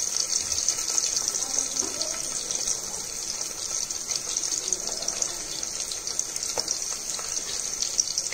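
Peeled shallots frying in hot oil with fennel and cumin seeds: a steady sizzle with fine crackling.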